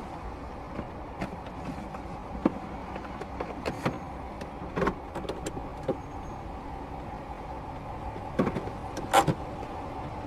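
Car idling, heard from inside the cabin as a steady hum, with scattered short clicks and knocks; the loudest come about eight and nine seconds in.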